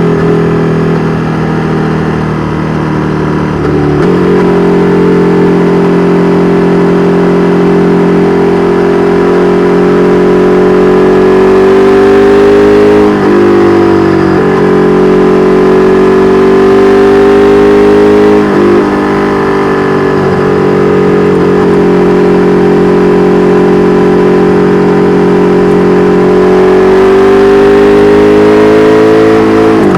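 KTM 1290 Super Duke R Evo's V-twin running through an Austin Racing V3 Mini exhaust while riding, the engine note climbing slowly under gentle throttle. It dips briefly and picks up again three times, about 13 seconds in, about 18 seconds in and near the end, as gears are shifted.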